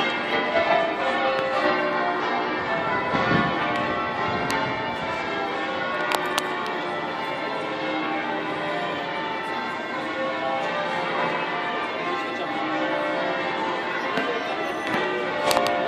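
Bath Abbey's church bells ringing in changes: a steady, unbroken run of many overlapping bell strokes, their tones sustaining into one another.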